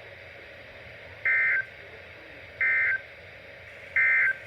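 NOAA Weather Radio's EAS end-of-message code: three short identical bursts of SAME data tones, each about a third of a second long and about a second and a half apart, over steady radio hiss, signalling the end of the alert.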